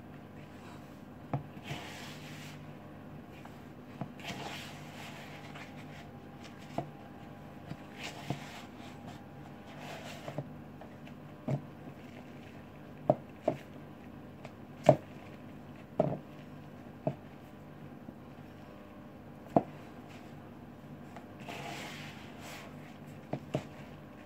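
Hands squeezing and kneading crumbly biscuit dough in a plastic mixing bowl: soft squishing and rustling, broken by about a dozen irregular sharp knocks of the bowl, the loudest bunched in the second half. A steady low hum runs underneath.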